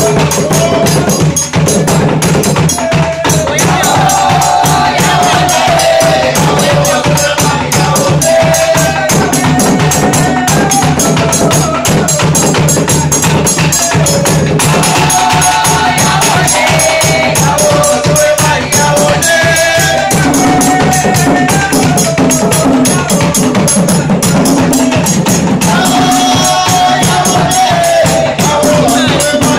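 Apinti and other Surinamese Maroon hand drums played together in a fast, dense rhythm, with voices singing over the drumming.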